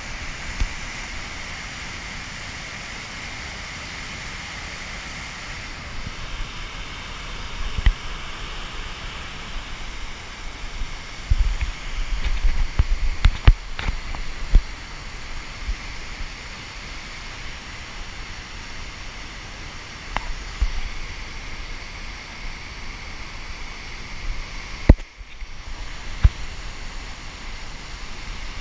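Whitewater rapids rushing steadily over and around boulders. A few short sharp knocks and low bumps stand out around the middle and again a few seconds before the end.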